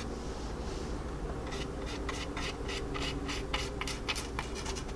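Small, old, stiff paintbrush scratching over the plastic surface of a scale model jet in quick short strokes as it lays oil paint along the panel lines, about four or five strokes a second, starting about a second and a half in.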